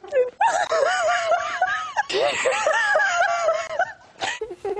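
A woman laughing in high-pitched, wavering peals: two long runs with a short break about two seconds in, and a brief last burst near the end.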